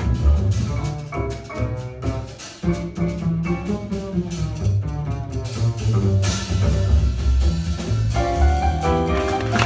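Jazz piano trio playing live: grand piano, double bass and drum kit together, the bass notes strong underneath. A wash of cymbals builds from about six seconds in.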